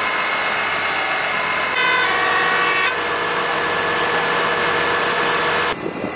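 Fire engine running steadily, with several steady tones over an even noise. About two seconds in, a horn sounds two notes one after the other for about a second.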